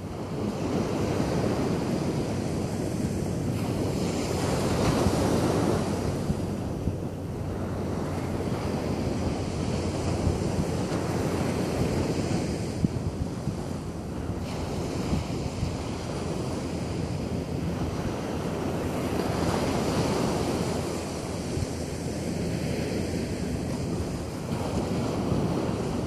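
Ocean surf: waves breaking and washing up the beach, the rush swelling and easing every several seconds. Wind buffets the microphone underneath.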